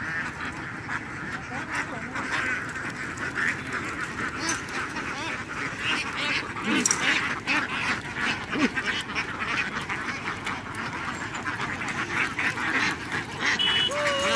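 A large flock of laying ducks quacking together, many overlapping calls in a continuous clamour.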